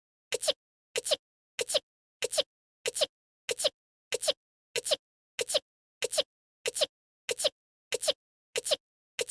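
A short, cute anime-style sneeze voiced by an actress, the same clip repeated over and over about one and a half times a second, with dead silence between repeats.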